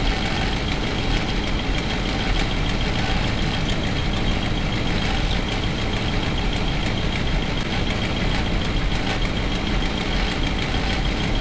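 Motorhome's warmed-up gasoline engine idling steadily, heard from inside the cabin with the engine cover off. The engine has an exhaust leak that can be heard from inside.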